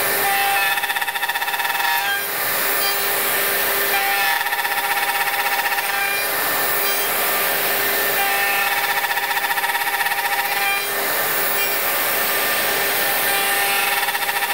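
Bosch GOF 1250 CE plunge router running under load while cutting box-joint fingers in a dovetail jig. Its tone changes every few seconds as it is passed through the cuts.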